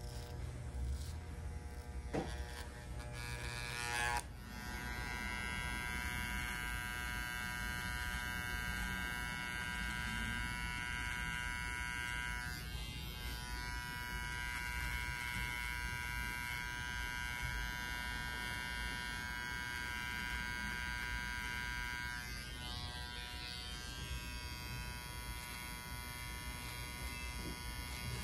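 Cordless electric beard trimmers buzzing steadily while detailing a beard line. About four seconds in, one trimmer's buzz gives way to a second trimmer with a T-blade, which runs on evenly, its tone wavering briefly twice as it is worked against the skin.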